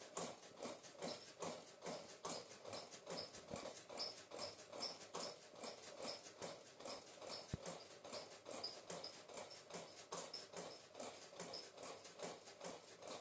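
Hand rubbing ghee into dry wheat flour in a glass bowl, a faint, steady, rhythmic scraping and patting of several strokes a second as the fat is worked into the flour for a crumbly dough.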